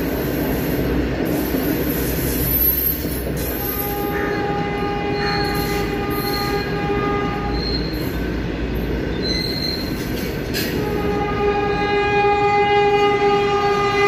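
Loaded coal freight wagons of a passing goods train rolling by close up, a steady rumble of wheels on rail. A long steady high tone with overtones sounds from about four to eight seconds in and again from about eleven seconds, growing louder near the end, with a sharp click just before it returns.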